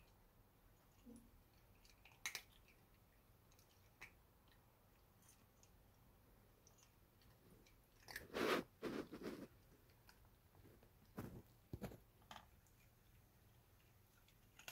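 A long-haired Persian chinchilla cat crunching dry kibble from a ceramic bowl. A few scattered crunches, then a burst of chewing about eight seconds in and a few more bites a couple of seconds later.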